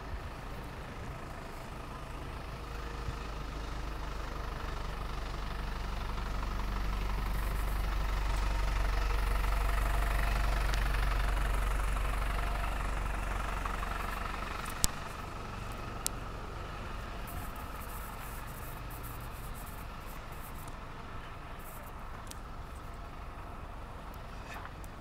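A motor vehicle's engine rumbling, growing steadily louder to a peak about ten seconds in and then fading away, over a low background of street noise. Two sharp clicks come shortly after the engine fades.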